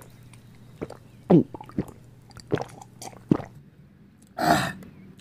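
A man gulping from a glass bottle: a string of short, wet swallowing sounds, several with a quick falling pitch, spaced about half a second to a second apart. About four and a half seconds in comes one short, loud, breathy burst.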